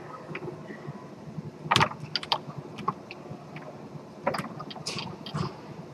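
Sharp clacks and knocks of play on a Tornado foosball table, as the ball is struck and the rods move. There is a loud cluster of hits about two seconds in and more around four to five seconds.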